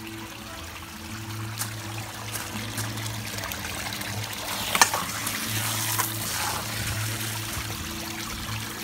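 Water running and splashing into a garden pond from a hose's spray nozzle and a small rock waterfall, a steady trickling hiss. A few sharp clicks sound through it, the loudest about five seconds in, over a low steady hum.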